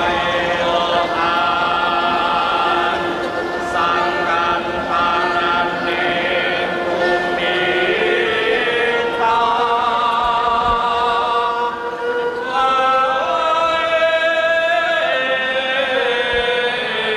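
Javanese chorus singing a slow vocal chant to accompany a court dance, with long held notes that waver slightly and shift in pitch every few seconds.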